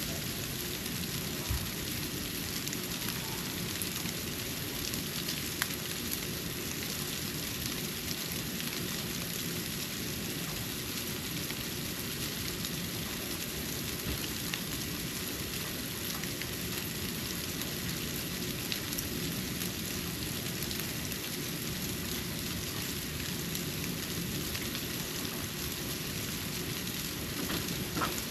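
Snow falling on a porch: a steady soft hiss with a few faint ticks of flakes landing on hard surfaces.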